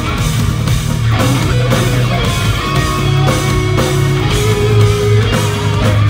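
A live instrumental progressive metal band playing: eight-string electric guitars over drums, with a heavy low end and steady cymbal and drum hits.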